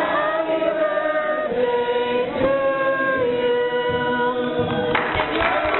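A group of people singing together in long, drawn-out held notes, with a few sharp clicks near the end.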